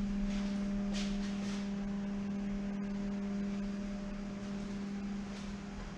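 A steady low hum: one held tone with fainter overtones above it, easing slightly near the end.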